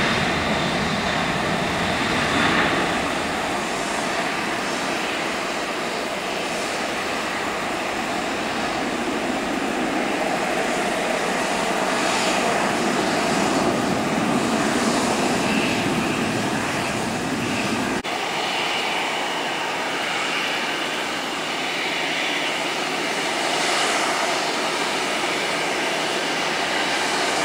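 McDonnell Douglas MD-11 freighter's three jet engines at takeoff power, a steady jet noise as the aircraft lifts off and climbs away. The deep rumble drops away suddenly about two-thirds of the way through.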